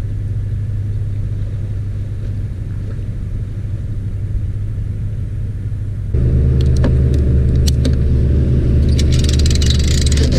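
A vehicle engine running steadily at low revs while the tow vehicle backs a boat trailer down the ramp. About six seconds in it switches abruptly to a louder, deeper engine hum, the boat's outboard idling up to the trailer, with scattered clicks and a hiss near the end.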